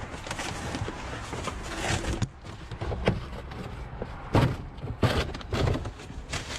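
Objects being shifted and handled inside a dumpster: rustling with scattered knocks and a few heavier thumps in the second half.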